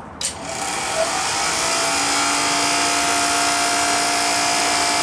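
Petrol-fired Cessna aircraft combustion heater switched on and lighting off: a click, then a rushing noise that builds over about a second into a steady loud running sound of the burner and its blowers, with a steady hum and a higher steady tone in it.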